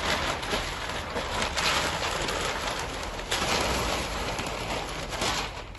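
Large sheets of wrapping paper being torn and crumpled off a van by hand: a continuous rustling and ripping that comes in surges.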